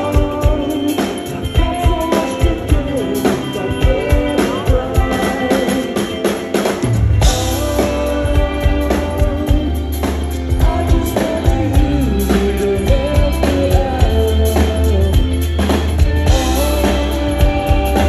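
Indie rock band playing live: drum kit, electric guitars and electric bass, with a lead vocal. About seven seconds in there is a loud crash and the low end comes in much heavier.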